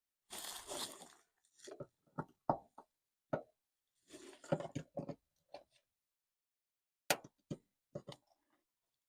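Scattered clicks and knocks of hands prying at plastic trim clips on a car's light housing, with two short stretches of rustling.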